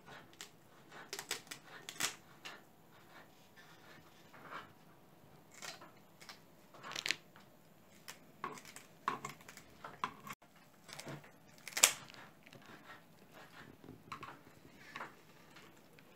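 Kitchen scissors snipping through the skin and fin of a whole raw salmon: a string of irregular crisp snips and clicks, the sharpest one about twelve seconds in.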